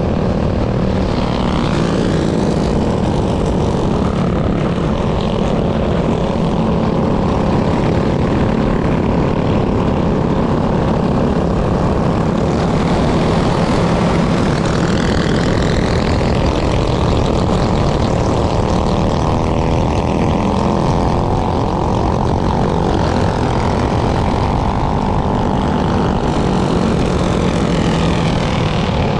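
Minibike's small engine running hard at high revs, its pitch rising and falling now and then with the throttle.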